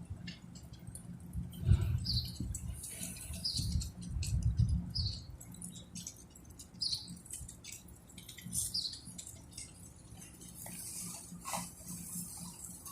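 Storm ambience: scattered patter and ticks with low gusts of wind buffeting the microphone, and a short high chirp repeating about every second and a half.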